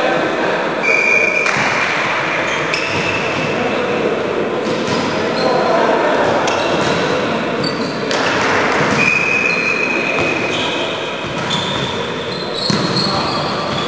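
Echoing hall sound of an indoor volleyball game: the ball being struck and bouncing on the hard court, with players' voices in the background.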